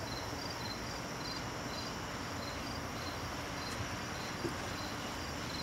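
Crickets chirping in an even rhythm, about two chirps a second, over a steady high insect trill.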